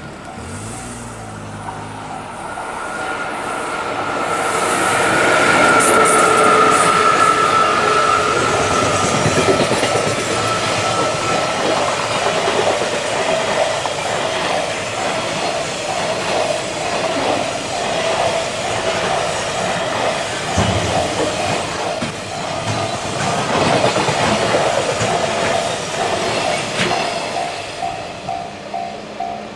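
Electric-locomotive-hauled container freight train passing close by. It grows louder over the first five seconds, with a high whine from the locomotive that drops slightly as it goes by. Then the long string of container wagons runs past with a clickety-clack of wheels, while a steady repeating ding, a level-crossing bell, sounds throughout.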